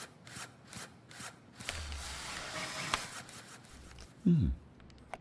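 A small plastic robot toy being folded up by hand: a quick run of small clicks, then about two seconds of rubbing and ratcheting with a sharp click. Near the end comes a short sound effect that falls steeply in pitch.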